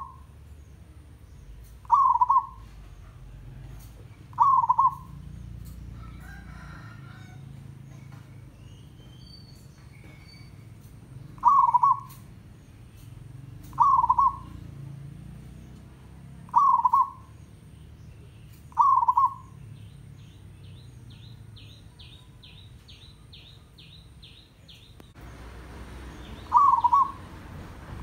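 Zebra dove giving short, loud cooing calls, seven in all, each about half a second long and coming every two to three seconds, with a longer pause in the middle.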